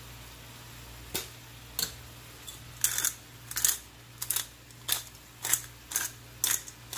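Hand-turned spice grinder being twisted: a couple of single clicking turns, then from about halfway a steady run of short ratcheting grinds, about two a second.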